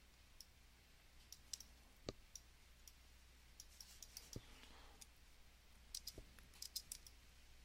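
Faint, scattered clicks of a computer mouse and keyboard, with a quick run of several clicks near the end, over a steady low hum.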